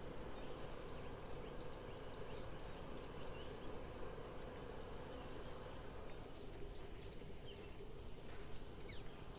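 Insects, crickets, chirring steadily in a high, even band, with a few short high chirps over it and a low rumble of handling noise as the phone is moved about.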